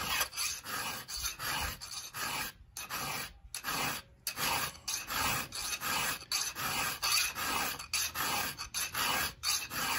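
Round chainsaw file rasping back and forth across a chain's cutter tooth in a long run of quick, even strokes, about two to three a second, with a couple of brief pauses.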